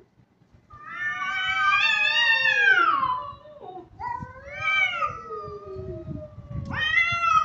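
Domestic cats caterwauling in an aggressive standoff: three long, drawn-out yowls, the first sliding down in pitch at its end, the last starting with a sharp upward swoop near the end.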